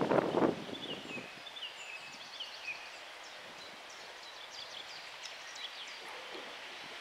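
Wind buffeting the microphone for about the first second, then songbirds singing over a quiet background: short falling whistled phrases and quick high chirps, repeated throughout.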